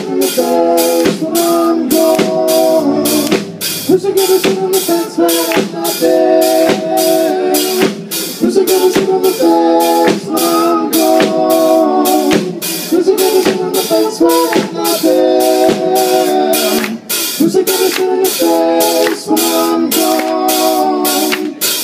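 A live indie rock band playing loudly: a steady drum-kit beat under electric guitar and keyboard repeating a chord riff.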